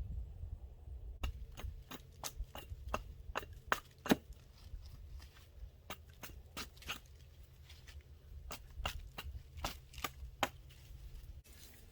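A quick, irregular run of sharp clicks and snaps, two or three a second, starting about a second in.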